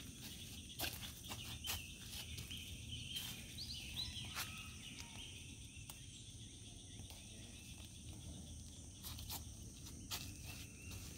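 Faint steady high-pitched insect chorus, with a handful of short rustles and steps from someone walking through tomato plants and picking fruit.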